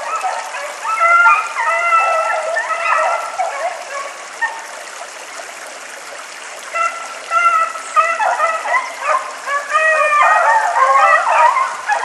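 A pack of rabbit hounds baying in several overlapping voices while running a cottontail's trail. The baying drops away about four seconds in, picks up again near seven seconds, and grows busier and louder toward the end.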